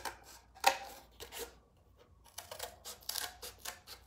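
Scissors cutting through cardboard in a string of separate snips, the sharpest a little under a second in.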